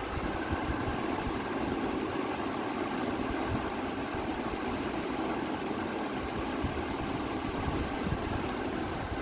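A steady mechanical hum.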